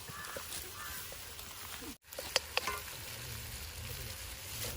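Prawns frying in a thick spice masala in a pan, a steady sizzle, with a few clicks of a small spoon stirring against the pan shortly after a brief break about two seconds in.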